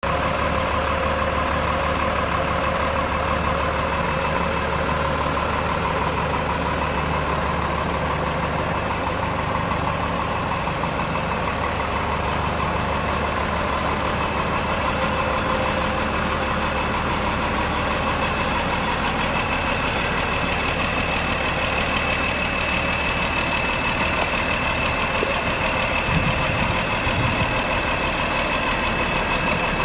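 Diesel engine of a 1988 Kenworth-badged Volkswagen 13.210 wrecker truck idling steadily.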